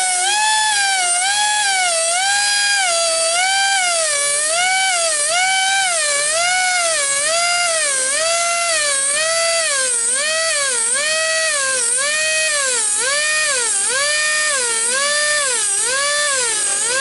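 Air-powered hand grinder whining as it sharpens the teeth of a bandsaw mill blade, its pitch dipping and recovering about once a second. It runs off a small air compressor that the owner says doesn't have the air it should.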